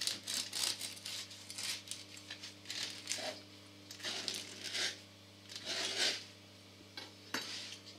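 Bread knife sawing through the crusty crust of a sourdough loaf on a wooden board: uneven scratchy strokes roughly once a second, with a sharp click near the end, over a faint steady hum.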